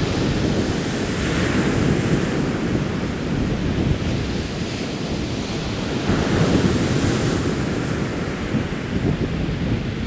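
Wind buffeting the microphone over the steady rush of sea surf, swelling about a second in and again around six seconds in.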